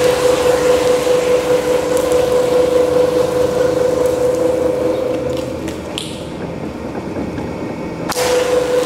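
Two-roll rubber mill running with a steady hum and a clear high tone as a sheet of recycled rubber compound is worked between its steel rolls; the tone fades and the sound dips about two-thirds of the way through, then returns near the end.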